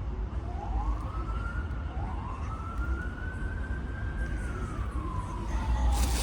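Emergency vehicle siren wailing: its pitch climbs twice, holds high, then slowly falls. A steady low rumble of traffic or wind runs under it.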